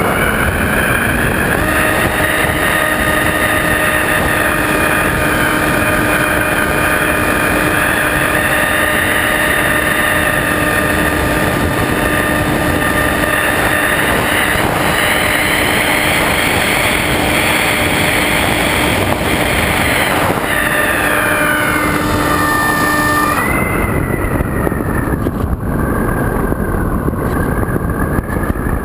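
Electric motor and propeller of a Multiplex EasyStar RC glider whining under power in flight, with air rushing past. The whine climbs in pitch about a second in, sways slowly up and down, and drops to a lower, softer note about three-quarters of the way through.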